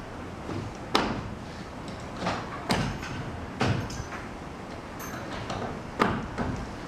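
A handful of irregular sharp knocks and bangs, about five, the loudest about a second in and again near the end, over a steady low background rumble.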